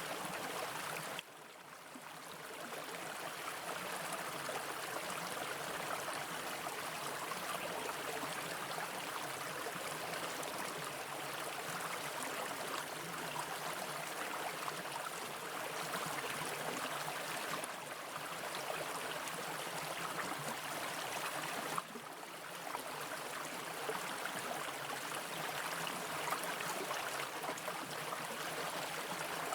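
Mountain brook water running steadily over rocks. The sound drops sharply for a moment about a second in and again near the 22-second mark, then returns.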